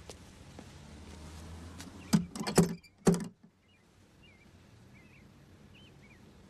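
Knuckles knocking on a wooden front door: a quick run of loud knocks about two seconds in, stopping about a second later, followed by faint bird chirps.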